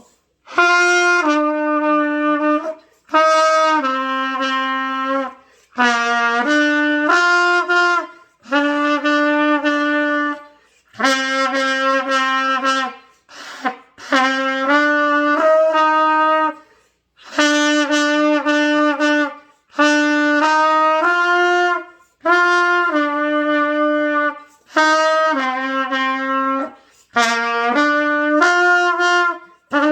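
Trumpet played by a learner: a simple tune in short phrases of two or three held notes each, about a dozen phrases in a row, with a breath taken in a short gap after each bar.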